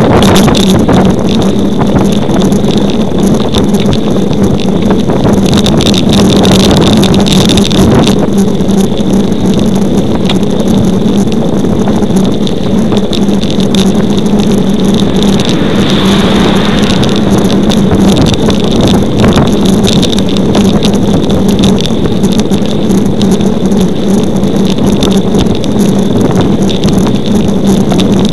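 Loud, steady rush of wind and road noise on the camera microphone of a road bike riding at speed, with a steady low hum underneath.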